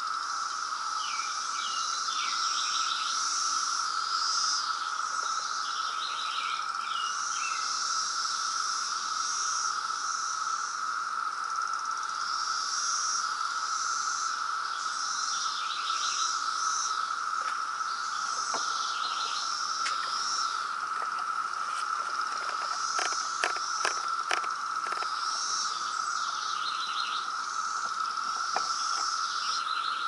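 Dense chorus of periodical cicadas: a steady, unbroken drone with bird calls chirping over it. A run of sharp clicks comes about two-thirds of the way through.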